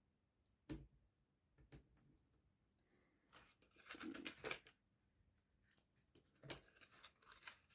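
Faint handling sounds of a folded cardstock box and a strip of double-sided tape: a few light taps, with a longer papery rustle near the middle.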